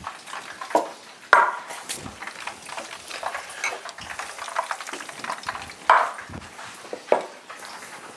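Battered pollock frying in hot fat, a steady sizzle throughout, under several sharp knocks and clatters of glass jars and kitchen things being handled and set down on a wooden board, the loudest about a second in.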